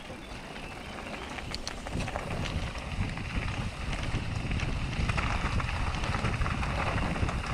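Mountain bike rolling down a loose gravel and stone trail: tyres crunching over the stones and the bike rattling, with wind buffeting the action-camera microphone. The rumble gets louder from about two seconds in as the bike picks up speed.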